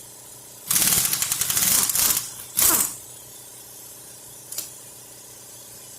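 Power impact wrench hammering in two bursts, a long one about a second in and a short one just after, loosening the main bearing cap bolts on a Cadillac 472 V8. A faint click about four and a half seconds in.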